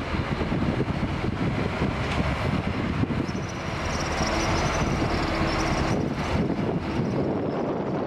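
Large diesel bus running, with its engine and road noise, and wind buffeting the microphone. A faint thin high whine comes in for a few seconds around the middle.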